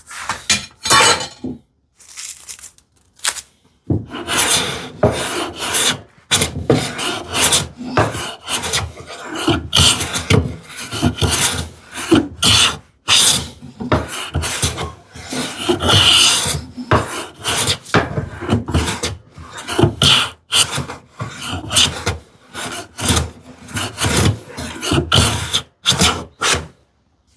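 Hand plane taking repeated strokes along the edge of a poplar board, each stroke a short scraping hiss of the iron slicing a shaving, a few spaced strokes and then a steady run of them from about four seconds in. This is edge jointing, planing down a belly so the paired board edges meet without gaps.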